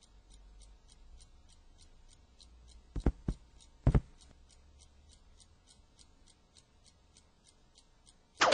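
Faint, steady ticking at about four ticks a second, with three short knocks about three to four seconds in.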